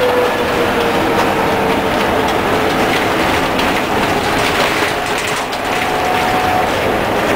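Leyland Lynx single-deck bus driving along at speed, heard from the cab: steady engine and road noise with a faint whine that slowly falls in pitch, and rattling and clattering from the bodywork and fittings that is busiest in the middle.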